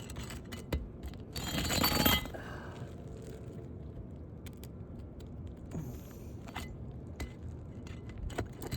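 Metal hand tool scraping and clinking against brittle old asphalt shingles as staple-fastened shingles are worked loose, with one louder scrape about a second and a half in and scattered light clicks after.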